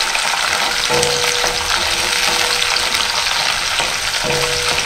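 Shallots and garlic cloves sizzling steadily in hot sesame oil in a kadai, stirred with a wooden spatula that scrapes across the pan.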